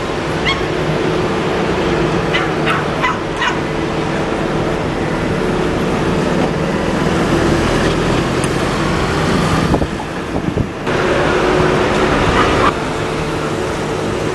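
City-centre traffic dominated by double-decker buses' diesel engines running, loudest as a bus passes close about two-thirds of the way through, then dropping suddenly. A few short, high chirps sound over it in the first few seconds.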